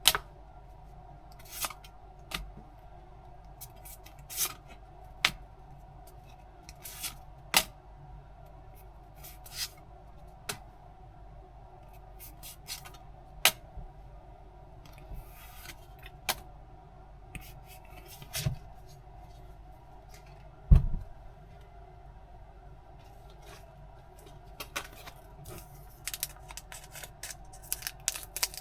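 Pokémon tin unboxing handling noise: scattered sharp clicks, snips and crinkles of packaging being cut and handled, with one louder knock about 21 seconds in, over a faint steady hum.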